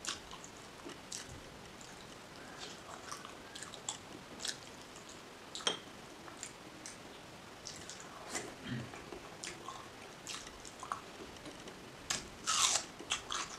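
Close-miked mouth sounds of eating boiled egg with chutney: soft wet chewing, smacks and small clicks, with a louder noisy mouth sound about a second before the end.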